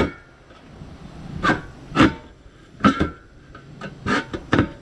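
Knife blade stabbing and sawing through the metal wall of a 5-litre beer keg can. About six sharp metallic crunches come at irregular intervals, each with a short ring, the thick metal giving way stroke by stroke.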